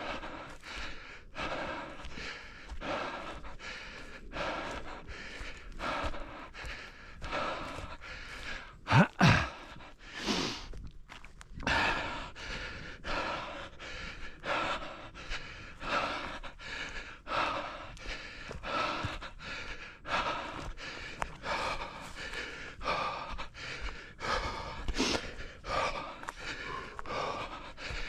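A runner's heavy, rhythmic breathing while running, about one and a half breaths a second, with one louder vocal sound about nine seconds in.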